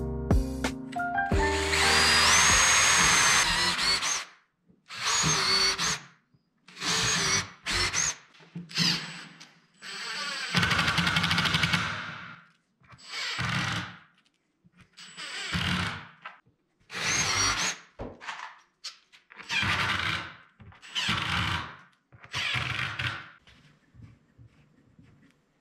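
Cordless drill/driver driving screws into particle-board cabinet panels, in about ten short runs of a second or two each, several starting with a rising whine as the motor spins up.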